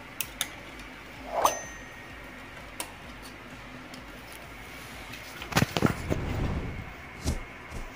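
Small clicks and taps of a steel screwdriver tip and a circuit board against a TV's sheet-metal back chassis as the board is pried loose. About one and a half seconds in, one tap rings briefly with a high metallic ping, and a cluster of louder knocks comes around six seconds in.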